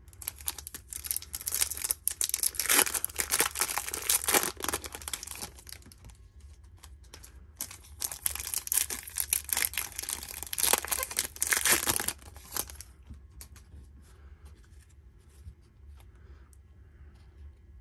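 Foil wrappers of trading card packs being torn open and crinkled, in two bouts of several seconds each, then only faint handling of the cards.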